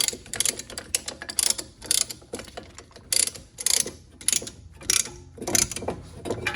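Brake caliper piston compressor tool being ratcheted against the caliper, a run of sharp metallic clicks about two to three a second, as the tool is set to push the caliper piston back into its bore.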